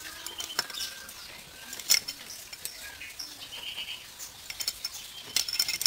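Scattered metallic clicks and clinks of tools and steering-rack parts being handled, with one sharp knock about two seconds in and a quick run of clicks near the end.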